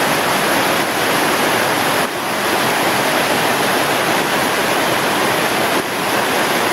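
Loud, steady rush of a flood-swollen mountain stream: a torrent of runoff after a thunderstorm and heavy rain.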